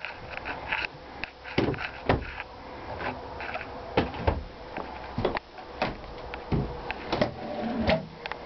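Wooden cabinet doors and kitchen drawers being opened and shut by hand: an uneven string of wooden knocks and clicks, about a dozen.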